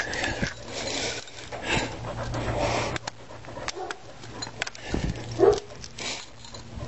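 Dogs moving about against the microphone: fur brushing and rubbing on it, with scuffs and bumps. There is a short whine about five and a half seconds in.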